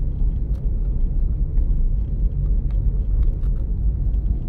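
Car driving slowly along a street: a steady low rumble of engine and road noise, with a few faint ticks.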